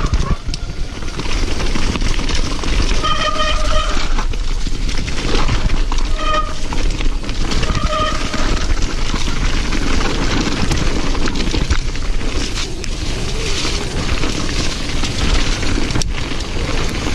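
Fast downhill mountain bike run on a dirt forest trail: steady wind rush on the camera mixed with tyres, chain and suspension rattling over roots and ruts. A few short hooting tones come through about three, six and eight seconds in.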